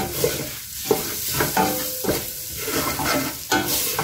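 Wooden spoon stirring and scraping beef, browned onions and pilau masala frying in a stainless steel pot, with a steady sizzle under several sharper scrapes and knocks of the spoon against the pot.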